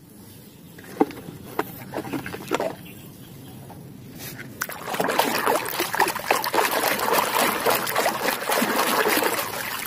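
Water dripping and sloshing in a plastic tub as a muddy toy truck is washed by hand: a few drips and knocks at first, then continuous splashing and sloshing from about five seconds in.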